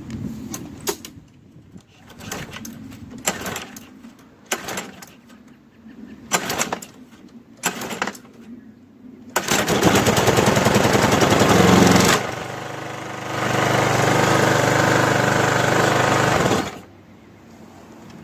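Walk-behind petrol lawnmower engine, fitted with a belt in place of its blade, pulled on the recoil starter about six times before it catches about nine seconds in. It then runs loud and steady, dips briefly about three seconds later, picks back up, and cuts off suddenly about a second and a half before the end.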